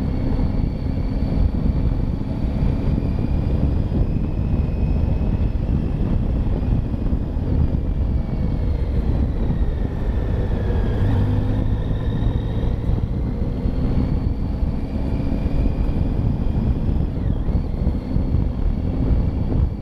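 A machine running steadily: a loud low rumble with a high whine that slowly rises and falls in pitch, dipping about halfway through and sweeping down sharply near the end.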